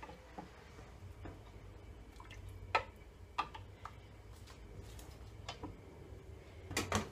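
A ladle tapping and scraping lightly against a steel pot and a glass baking dish as tomato sauce is spooned out: a few scattered light clicks, with a small cluster near the end, over a faint low hum.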